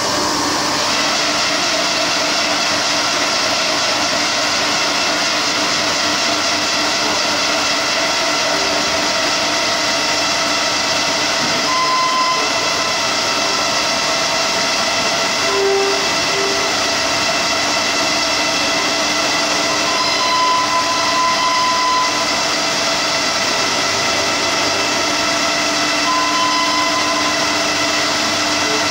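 Kearns Richards NC125 CNC horizontal borer running under power: a steady machine whine and hum with several held tones, and a few brief higher tones now and then.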